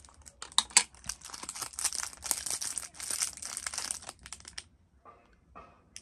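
Crinkling and rustling of packaging being handled, a dense run of crackles and clicks that stops about four and a half seconds in. Near the end, faint short sounds repeat about twice a second.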